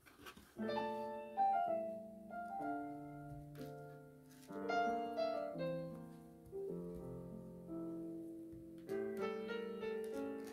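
Background piano music, a gentle melody over chords that begins about half a second in.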